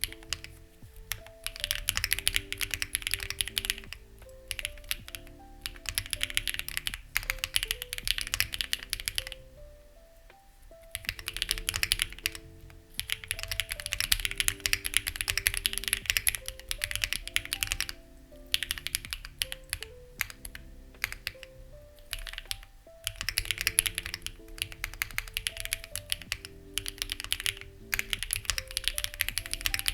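Fast typing on a Lucky65 v2 mechanical keyboard with stock, unlubed HMX Ziwei switches and CMK-profile keycaps: dense runs of key clacks in bursts of a few seconds with short pauses between. Soft background music plays underneath.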